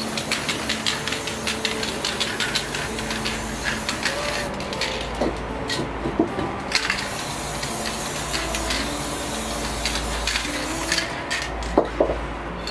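Aerosol spray-paint can hissing in bursts as pink paint is sprayed onto poster paper, with short pauses between passes.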